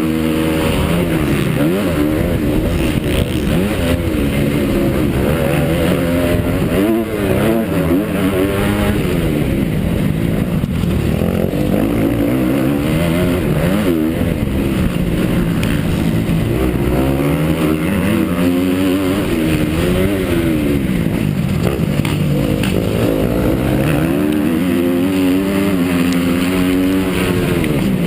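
Honda CRF250 four-stroke single-cylinder motocross engine ridden hard, its pitch climbing and dropping again every couple of seconds as the throttle opens and closes and the gears change.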